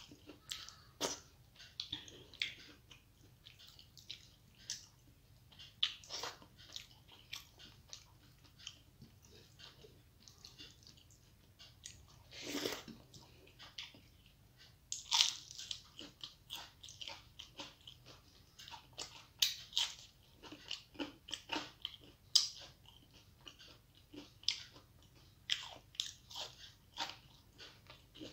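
Close-up of a person chewing and biting crisp fried food with rice: irregular crunches and wet mouth clicks, with one longer louder noise about halfway through.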